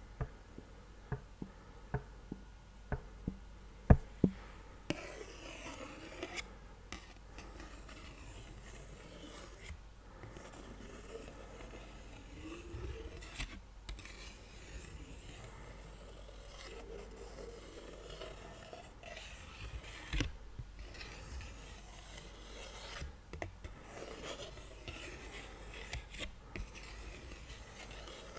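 A small paper picture card handled close to the microphone: a few sharp taps for the first few seconds, then from about five seconds in a steady scratching and rubbing of fingers over the card, with scattered clicks.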